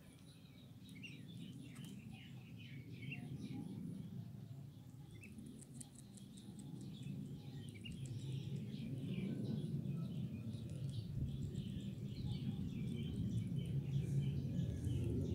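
A group of ducklings peeping, many short, high chirps overlapping, over a low rumble that grows louder toward the end.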